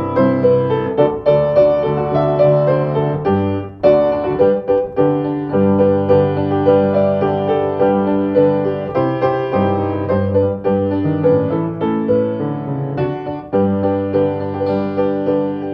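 Solo piano playing held chords, with new notes struck about every second.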